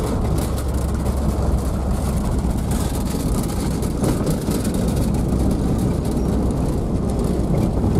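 UAZ-452 van driving on a gravel forest road, heard from inside the cab: a steady low engine drone and tyre noise with constant fine rattling and knocking.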